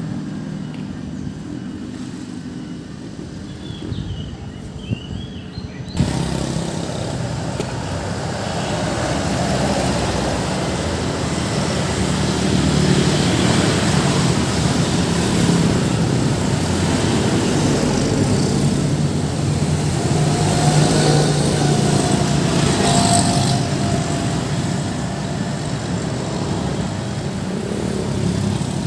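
Busy road traffic: vehicle engines running as cars and motorcycles pass. It steps up suddenly about six seconds in and stays louder and denser after that.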